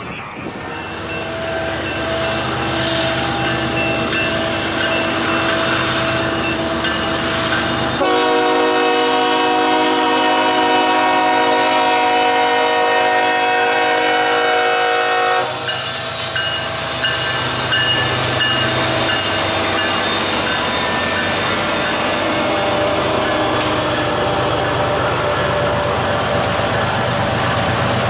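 CSX freight train's diesel locomotive horn sounding a long, loud chord that stops about halfway through, followed by the train rumbling past with wheels clacking on the rails.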